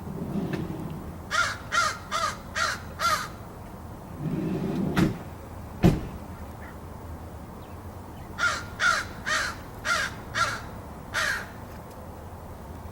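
A crow cawing in two runs of harsh, evenly spaced caws, five and then six. A sharp knock comes between the runs, about six seconds in.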